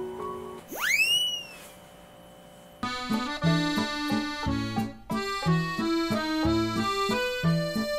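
Background music: a few soft piano-like notes end, a quick upward-gliding whistle-like sound effect comes about a second in, and after a short pause a comical accordion solo starts near three seconds in, with a bass note about once a second under the chords.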